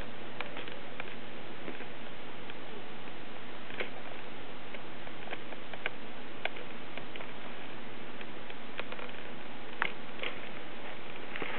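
Kittens playing: scattered light taps and clicks at irregular intervals over a steady hiss.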